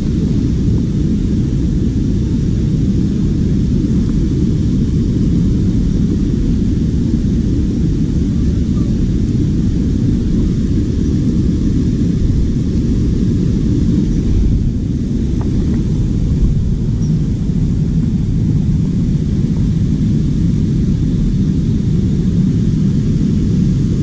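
Waterfall: falling water making a steady, deep rushing noise.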